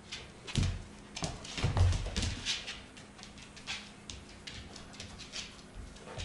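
Two Siberian huskies play-wrestling on a laminate floor: irregular clicks and scuffles of claws and paws, with heavier thumps about half a second and two seconds in.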